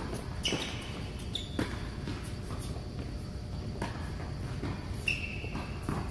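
Tennis rally in a large indoor hall: a string of sharp racket-on-ball hits and ball bounces, several knocks about half a second to a second apart, with short high sneaker squeaks on the hard court.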